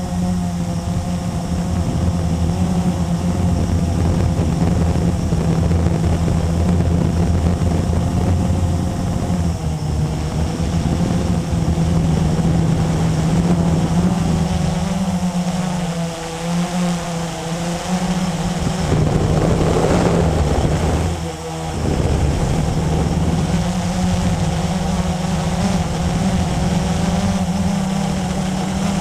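Blade 350QX quadcopter's four brushless motors and propellers humming steadily in flight, heard from the camera on the airframe, their pitch shifting as the throttle changes. About two-thirds of the way in, a louder rushing noise rises for a couple of seconds, followed by a brief drop in level.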